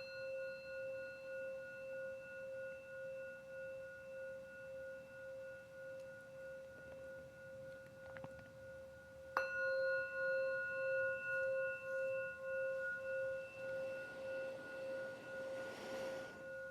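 Meditation bell struck twice, the second strike about nine seconds in and louder, each time leaving a long, wavering ring with higher overtones; the bell marks the close of the silent meditation. A soft rustle comes in near the end.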